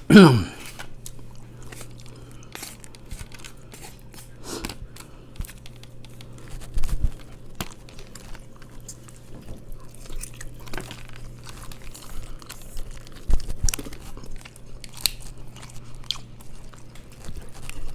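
Close-miked mukbang eating: chewing and biting mussels and chicken with rice, with scattered small clicks throughout. A brief, loud downward-sliding sound comes right at the start. A faint steady low hum runs underneath.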